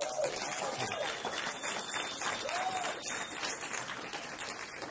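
Audience applauding after a speech. The clapping breaks out suddenly at the start and holds steady, with a couple of short rising-and-falling calls over it, near the start and again about two and a half seconds in.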